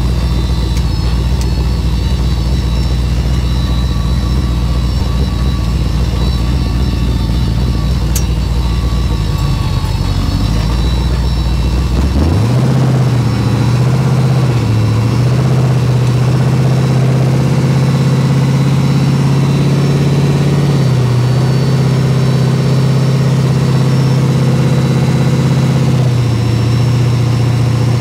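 Turbocharged LS V8 of a Diamond T rat rod truck, heard inside the cab with no window glass. It runs at low, steady revs for about twelve seconds, then the engine note steps up as the truck pulls away and holds at a higher steady speed, easing off briefly a few times.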